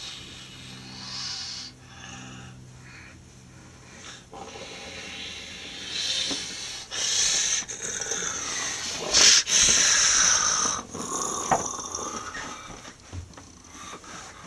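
Breathy, hissing creature noises in uneven bursts, loudest about nine to eleven seconds in: a monster voice made for the devil puppet.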